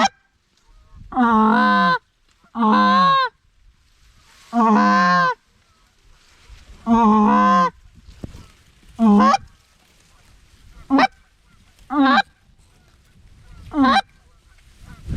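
Waterfowl call blown close by in loud, honking notes: four long, drawn-out notes, then five short single notes spaced a second or two apart, calling to passing ducks to turn them in.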